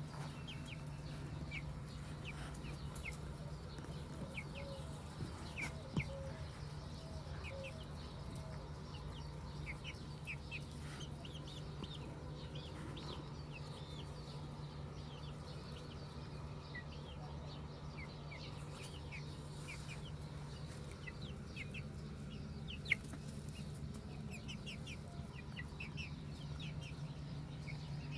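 Chickens clucking, with many short high-pitched calls scattered throughout and a few lower clucks, over a steady low hum. Two sharp clicks stand out, one about six seconds in and one near the end.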